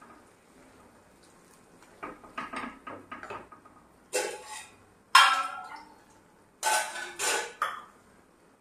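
Metal kitchenware clattering: several short clusters of clinks and knocks with a little ringing, the loudest about five seconds in.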